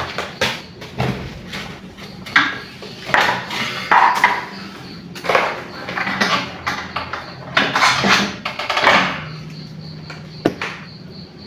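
Objects being handled and shifted about by hand: a string of irregular rustles, scrapes and knocks, with one sharp click near the end.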